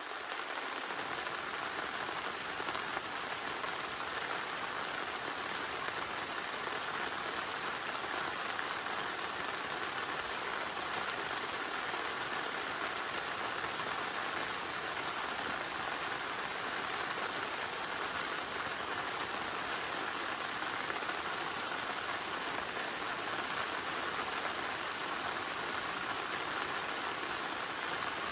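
Steady rain falling, an even hiss with faint scattered drop ticks, unchanging throughout.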